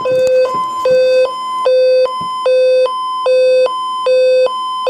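Hi-lo alert tone over AM radio: a high and a low buzzy tone, an octave apart, taking turns about every 0.4 seconds. It heralds an Emergency Alert System tornado warning.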